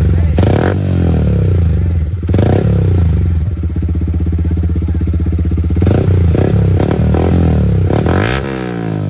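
Yamaha R15 V3's 155 cc single-cylinder engine, fitted with an Akrapovic full exhaust system, idling and revved lightly in short blips several times, with a steady idle in the middle.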